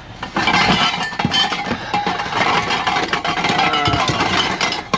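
Scrap metal pieces clattering and clinking as they are handled and sorted, a dense run of knocks with some brief metallic ringing.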